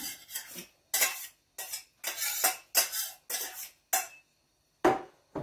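Metal utensil scraping and tapping chopped onions out of a stainless steel mixing bowl into the soup pot, about eight quick strokes in a row, then two duller knocks near the end.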